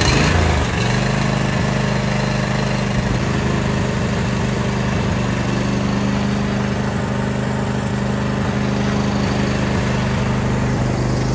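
John Deere D170 lawn tractor's V-twin engine running at a steady speed just after being started, settling in the first moment, while the tractor is test-driven on its newly replaced drive belt.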